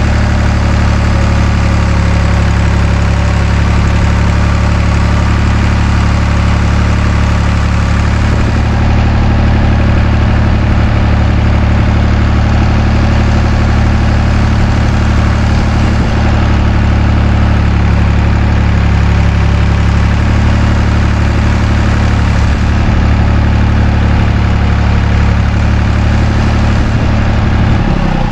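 A large engine idling steadily, a loud low hum that holds the same pitch throughout.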